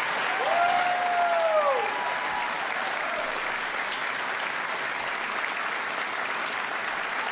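Audience clapping steadily, with a couple of voices calling out over the applause in the first two seconds.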